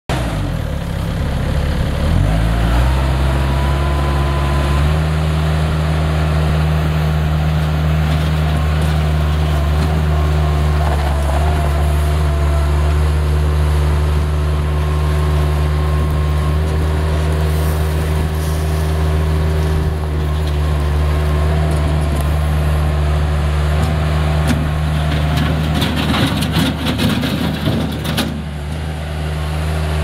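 Bobcat 753 skid steer's four-cylinder Kubota diesel engine coming up from idle to high throttle over the first few seconds, then running steadily at high revs while the loader drives and works its bucket. Near the end there are a couple of seconds of crunching as the machine skids and turns on gravel.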